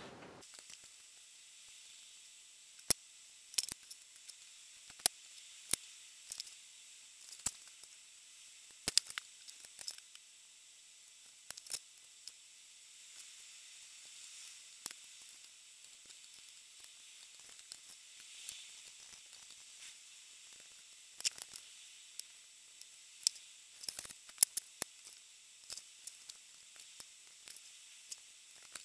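Faint sizzling and crackling of solder flux as a soldering iron melts solder onto the pins of a small dual potentiometer: scattered sharp clicks over a steady faint hiss.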